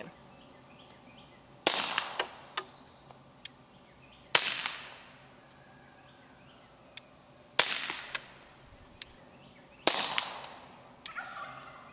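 Four suppressed .22LR pistol shots through a Rugged Oculus22 suppressor, a few seconds apart, each a sharp crack that trails off over about a second. The shots test the aired-out can for a louder first-round pop, and the difference is only slight.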